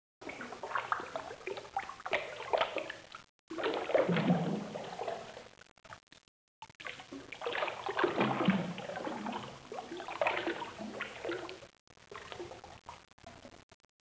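Sloshing, gurgling water sound in several stretches, each cutting off abruptly into a brief dead silence.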